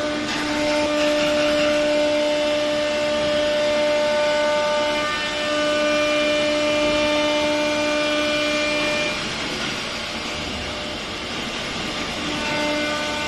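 Spindles of a four-head CNC router whining steadily while routing a wood board, over a steady rushing noise. The whine drops out about nine seconds in and comes back near the end.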